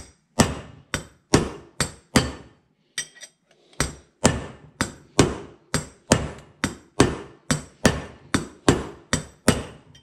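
Ball-peen hammer tapping on a split old bearing race, driving a new bearing race down evenly into a Jeep CJ-5 wheel hub. A steady run of sharp metal strikes, about two to three a second, with a brief pause near three seconds in.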